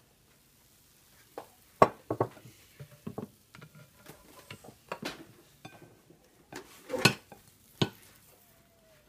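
Plastic spatula scraping and knocking against a frying pan as scrambled eggs are served out of it, with the pan knocking against the plates. Irregular sharp clacks, the loudest about two seconds in.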